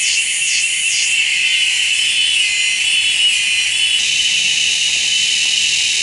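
Cicada singing: a loud, high, shrill buzz that pulses about two or three times a second at first, then settles into a steady unbroken drone after about a second.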